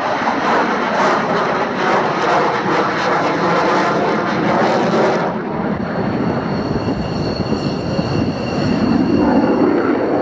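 Saab Gripen fighter's Volvo turbofan running loudly as the jet flies an overshoot past the crowd, a dense jet roar. About five seconds in, the hissing top end falls away and a steady high whine comes through.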